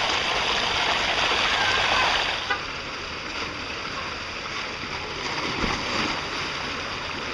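Water rushing down a water slide, a loud steady hiss that cuts off suddenly about two and a half seconds in. Quieter running water follows, then a short splash a little after five seconds as a rider lands in the pool.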